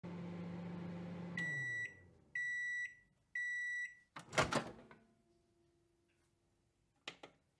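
Microwave oven running with a steady hum that winds down in pitch as the timer finishes, then three high beeps about a second apart signalling that it is done. Then the door latch pops open with a loud clunk, and there is a short click near the end.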